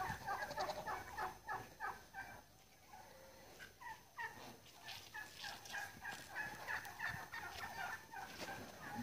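Domestic poultry calling: a rapid run of short pitched notes for about the first two seconds, a brief lull, then scattered calls picking up again toward the end.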